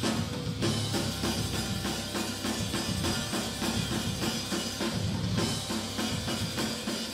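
Live rock band of drum kit, electric guitars and bass playing a driving beat. The whole band comes in together at the start, right after a held chord.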